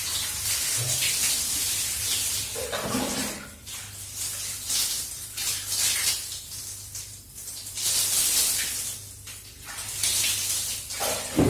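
Water splashing and dripping while wet cat fur is scrubbed by hand, coming in repeated short hissing bursts, with a brief louder sound near the end.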